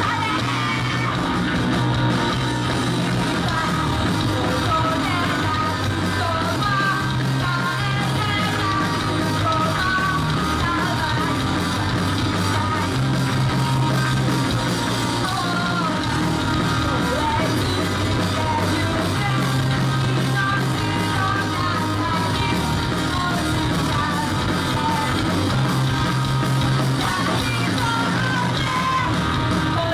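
Rock band playing live: guitars, bass and drums with a lead singer, the vocal at times close to a shout.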